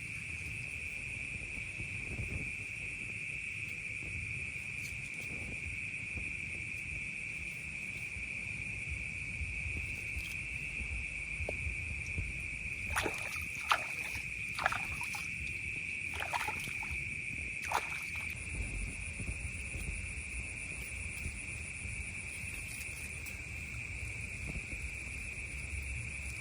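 Steady high-pitched drone of a night insect chorus, with a few short sharp clicks about halfway through.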